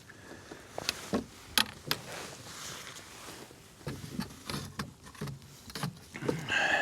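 Irregular knocks and clicks of gear being handled in a fishing kayak, with a few sharp clicks early and a cluster of duller knocks later.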